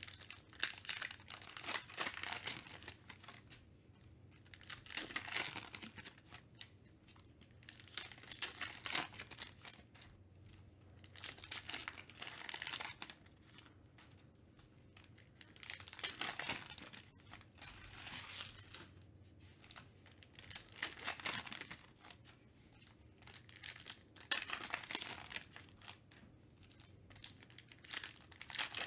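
Foil trading-card packs being torn open and crinkled, in short crackling bursts every three to four seconds.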